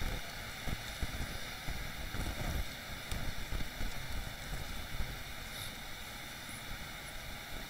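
Faint microphone and sound-system noise: a steady hiss with an uneven low rumble, like air or breath on a close microphone.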